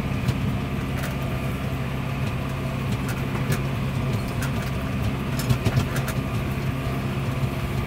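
Massey Ferguson 6615 tractor's engine running steadily under load while pulling a John Deere 566 round baler, heard from inside the cab, with scattered light clicks and rattles.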